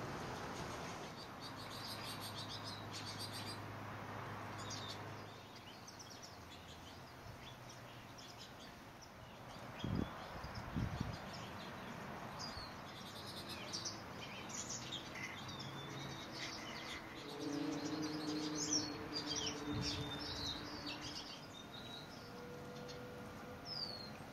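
Small finches chirping and twittering in short high calls and a few down-slurred notes, busiest in the second half, over the bubbling of a small fountain bird bath. Two low thumps come about ten and eleven seconds in.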